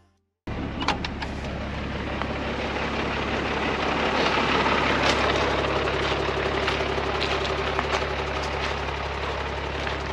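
Mercedes Unimog U1700L truck's diesel engine running steadily as it drives slowly over loose gravel, with tyre rumble and scattered stone clicks under the wheels. The sound cuts in suddenly about half a second in.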